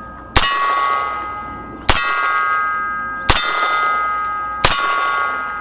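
Heritage Rough Rider single-action .22 LR revolver firing CCI Velocitor rounds four times, about a second and a half apart. Each shot is followed by the long, fading ring of a steel silhouette target being hit.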